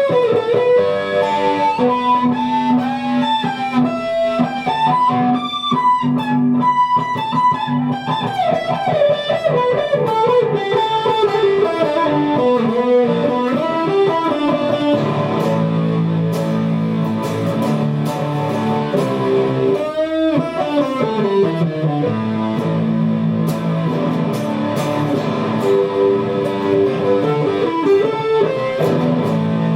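Guitar music: a melody line that slides up and down over steady held lower notes.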